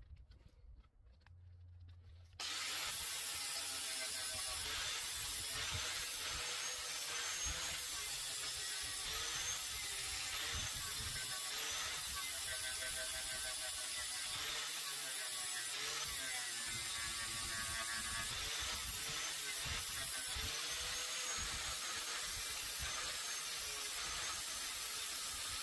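Electric angle grinder grinding down weld beads on a steel mower deck at the wheel mount, starting abruptly about two and a half seconds in and then running steadily, its whine wavering as the disc bites.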